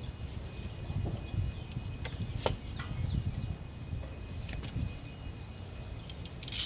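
Scattered light clicks and taps from handling and hand-threading the brake caliper bolts, with a sharper click about two and a half seconds in and a cluster of clicks near the end, over a low steady rumble.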